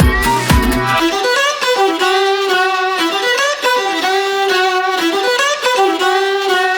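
Background music: a violin melody over a light accompaniment, the bass and beat dropping out about a second in.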